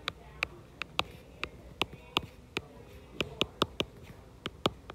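Stylus tapping on a tablet's glass screen while handwriting: about fifteen sharp ticks at irregular spacing.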